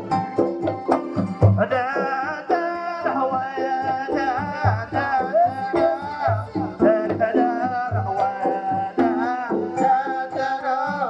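Traditional Dhofari folk music: drums beat a steady rhythm of about three strokes a second, and about a second and a half in a wavering, ornamented melody line joins them and carries on over the drumming.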